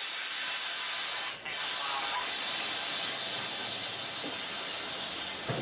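Steady hiss of compressed air from a stopped streetcar's air brake system, with a brief break about a second and a half in and a knock near the end.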